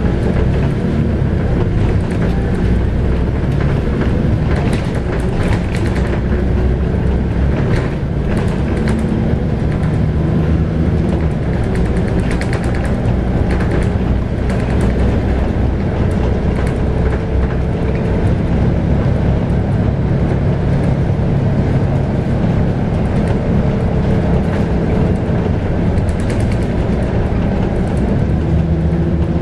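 A Scania K280UB bus under way, its 9.3-litre five-cylinder Scania DC9 diesel running steadily over road noise. Loose fittings rattle and click now and then, most often in the first half.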